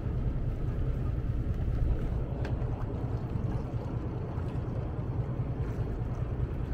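Boat engine running steadily: a continuous low rumble.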